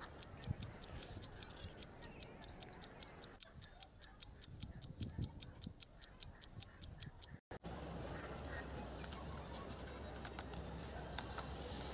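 Quick, even ticking like a clock, which stops abruptly about seven and a half seconds in and gives way to a faint steady hiss with a few scattered ticks.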